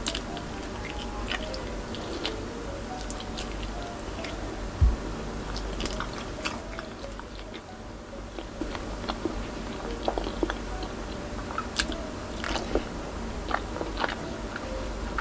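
Close-miked mouth sounds of a person biting and chewing a piece of pork belly, with irregular wet smacks and clicks.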